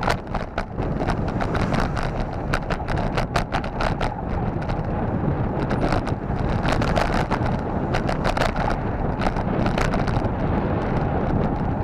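Wind rushing over the microphone of a camera riding on a moving bicycle, with frequent irregular rattling clicks from the bike and its camera mount jolting over the road.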